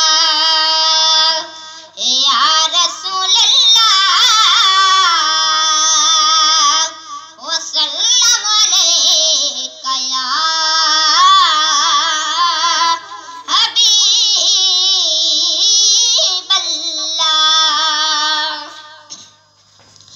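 A boy singing a naat, an Urdu devotional song, solo into a handheld microphone: long held, ornamented notes in phrases, with short breaks for breath between them.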